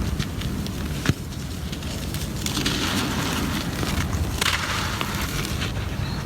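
Gritty cement crumbling and crunching, a dense steady crackle of breaking grains with a sharp crack about a second in and two louder bursts of crumbling later.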